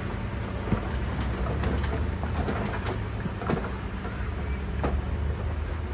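Heavy diesel earthmoving machine, a bulldozer or dump truck, running steadily with a low engine rumble, with scattered knocks and rattles over it.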